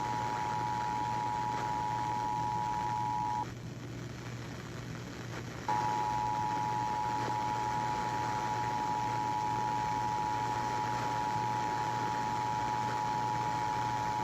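Emergency Alert System attention signal: two steady tones sounded together as one continuous alarm. It cuts off about three and a half seconds in, leaving a background of hiss and low hum, then starts again about two seconds later and holds until the end.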